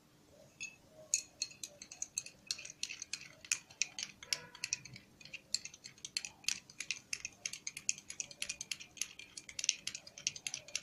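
A small spoon clinking quickly and unevenly against the sides of a cup, several light ticks a second, as ground herbs are stirred into freshly boiled water.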